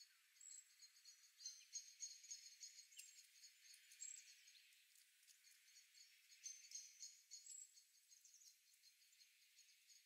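Small songbirds chirping faintly: rapid high-pitched chips and trills, with a few short thin whistled notes now and then.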